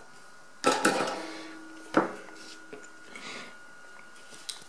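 Hand tools (screwdriver, tweezers, soldering iron) knocked down on a hard workbench: two sharp knocks just under a second in and a third at about two seconds, one ringing briefly, then a few light ticks as the small circuit board is handled.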